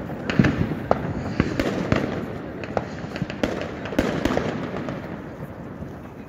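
New Year's Eve fireworks and firecrackers going off all around: an irregular string of sharp bangs and cracks over a continuous background of more distant explosions, thinning out near the end.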